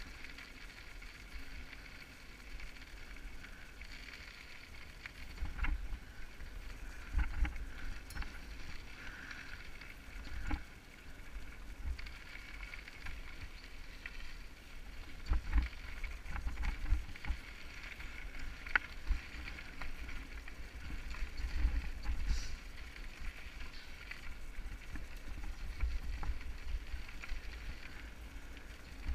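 Mountain bike rolling over a rocky dirt trail: tyre noise on gravel under a changing low rumble, with scattered sharp knocks and rattles as the bike hits bumps and stones.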